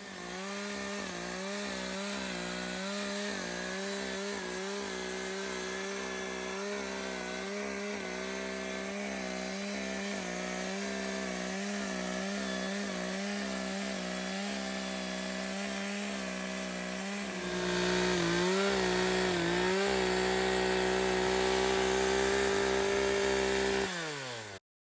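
Chainsaw running at full throttle while ripping lengthwise through a log on a guide-track mill, its pitch wavering under the load of the cut. About 17 seconds in it gets louder and steadier, and near the end the pitch drops as the throttle is let off before the sound cuts off suddenly.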